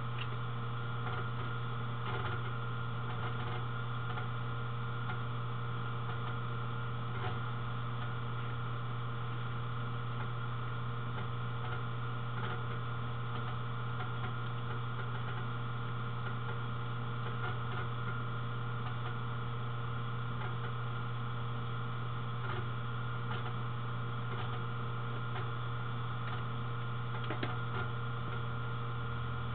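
Steady low electrical hum with faint, irregular clicks over it, like a computer mouse being clicked while drawing.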